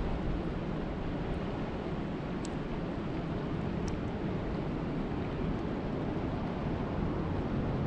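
Steady rain falling on a lake, an even rushing noise weighted toward the low end, with a few faint high ticks of single drops.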